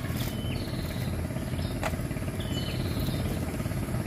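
Tracked excavator's diesel engine running steadily with a low rumble. Above it a bird calls several times, and there is one sharp click about two seconds in.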